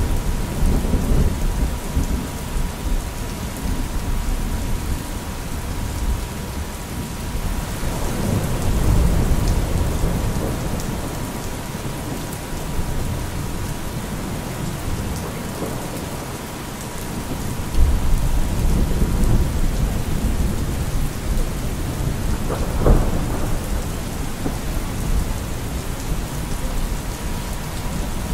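Steady rain with several low rolls of thunder, one sharper clap past the middle. A steady 963 Hz tone sounds beneath, fading out in the later part.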